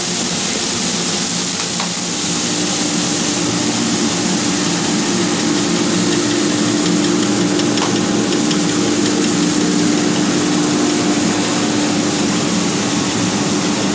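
Puffed-rice (muri) making machinery running: electric-motor-driven belt drives and a centrifugal blower give a steady mechanical hum over a loud even hiss. A steady hum tone comes in about two seconds in and holds.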